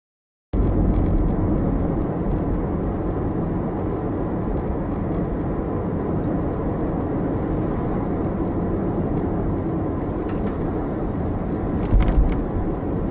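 Steady driving noise of a 50-series Toyota Prius at about 45 km/h, heard inside the cabin: a low rumble of tyres on the road. It starts about half a second in, and there are two short thumps near the end.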